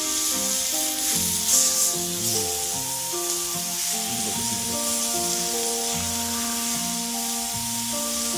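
Beef sizzling on a hot stone griddle as a steady high hiss, with a brief louder spurt about a second and a half in. Background music of slow, held melody notes plays over it throughout.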